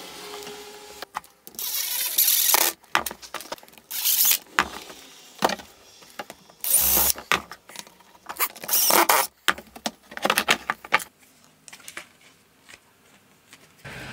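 Workshop handling noise as a cedar end block and a half-round PVC pipe are pushed together and fastened. It comes as irregular bursts of scraping, knocking and rattling, dying down about eleven seconds in.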